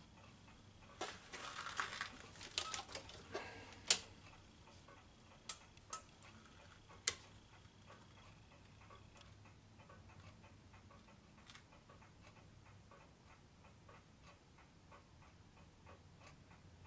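Clattering and clicking as a ring-light magnifier lamp is pulled into place over a small bench lathe, ending in a sharp click about four seconds in, followed by a few separate knocks. After that only a faint, regular ticking.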